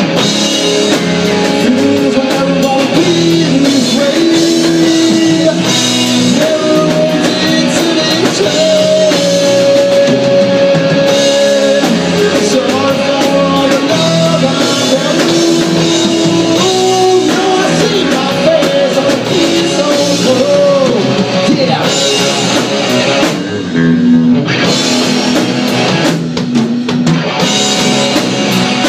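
Live rock band playing: electric guitar, electric bass and drum kit together, with held, sliding guitar or vocal notes over a steady beat.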